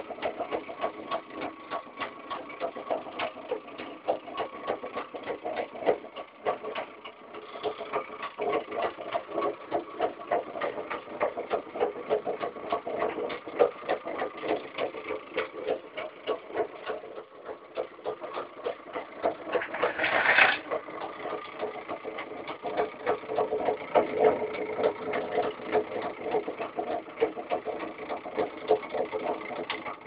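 Homemade magnet motor generator running, with rapid, even clicking over a steady whine. A brief louder rasp comes about two-thirds of the way through.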